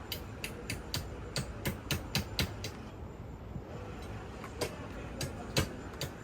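A run of sharp clicks or taps, about three a second for the first two and a half seconds, then a few scattered ones.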